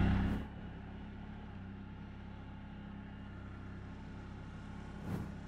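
A vehicle engine running with a steady, low hum that weakens near the end.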